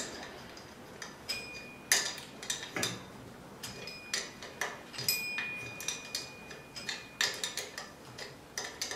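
Allen key clicking and clinking against the socket-head screws of an electric motor's mounting flange as they are undone: irregular sharp metallic ticks, some ringing briefly.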